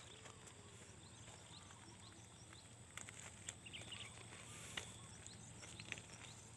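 Near silence: faint riverside ambience with a thin steady high hiss and a few soft clicks in the middle.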